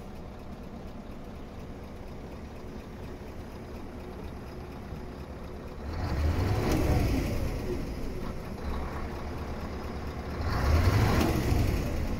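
Scania R164.580's V8 diesel idling, heard from inside the cab, then revved twice, about six seconds in and again near the end, each rev rising and settling back toward idle.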